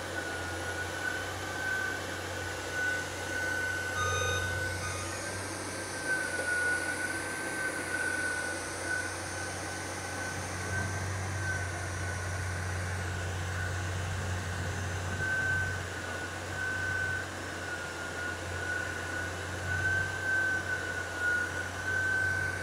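Tracked rotary drilling rig running steadily: a low engine hum with a constant high-pitched whine over it.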